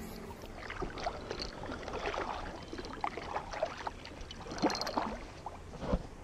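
Kayak paddle strokes: the blade dipping into the lake, with water splashing and dripping off it, and a dull knock near the end.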